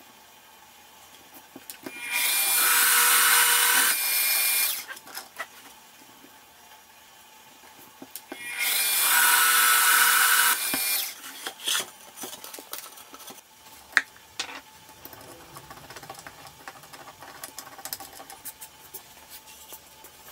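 Benchtop drill press boring into plywood with a 25 mm Forstner bit: two drilling passes of about two and a half seconds each, several seconds apart. Scattered light knocks follow in the second half, one sharp click among them.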